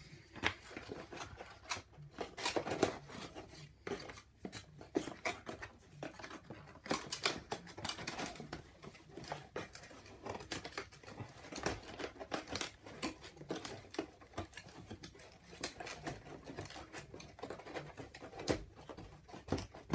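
Thin cardboard being handled and slotted together: a folded cardboard divider strip pushed into the slits of a cardboard sheet, with irregular scraping, rubbing and small clicks of card against card.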